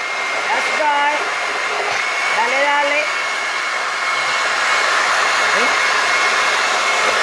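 Countertop blender with a glass jar, its motor running steadily as it churns a thick frozen fruit smoothie, with a steady high whine over the whir. The sound grows a little fuller and louder about four seconds in.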